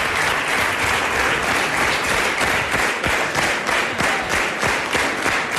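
Studio audience applauding: a dense, steady wash of many people clapping.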